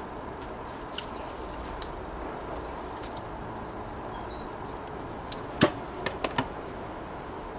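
A few sharp clicks and taps of small items being handled on a work table, bunched together a little past halfway with the first the loudest, over a steady low hiss.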